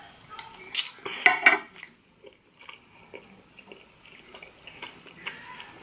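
A glass of ice water set down on a marble tabletop: a sharp click, then the ice clinking and rattling in the glass for about half a second. Faint small chewing and mouth sounds follow.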